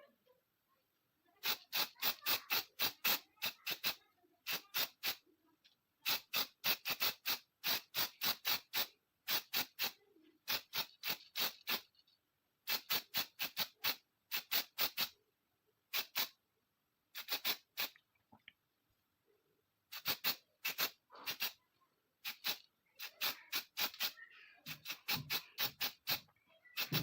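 Rapid back-and-forth abrasive hand strokes on a pistol part, about five strokes a second, coming in runs of a few seconds with short pauses between them.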